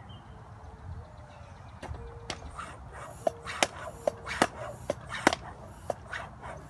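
Floor bicycle pump being worked by hand to pressurise a homemade air-gun tank towards about 70 PSI. About two seconds in, a run of sharp clicks and short squeaks begins, several a second.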